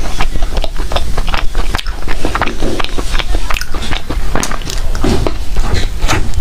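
Close-miked eating sounds: a person biting and chewing food, with irregular wet smacks and mouth clicks.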